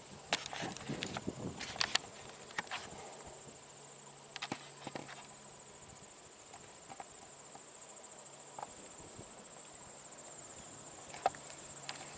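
Insect chorus trilling steadily at a high pitch, with a few sharp clicks and ticks scattered over it, most of them in the first three seconds and one louder click about a second before the end.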